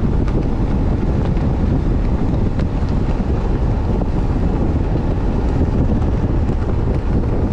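Skiff running at speed under an Evinrude 150 outboard, with heavy wind buffeting the microphone over the engine and the rush of water; steady throughout.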